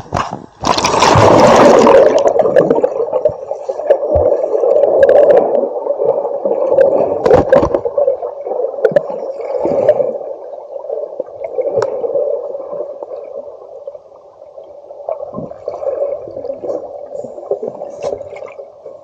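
River water splashing and gurgling: a loud splash about a second in, then continuous churning, bubbling water that gradually fades.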